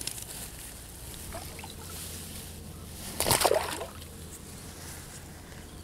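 A short splash and slosh of water about three seconds in, with faint handling rustles around it.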